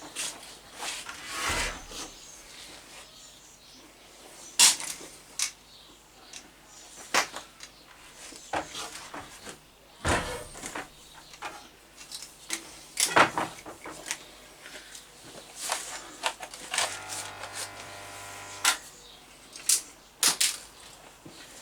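Scattered knocks, clicks and rubbing of tools and equipment being moved and handled. A steady buzzing hum starts about three-quarters of the way through, lasts about two seconds and cuts off.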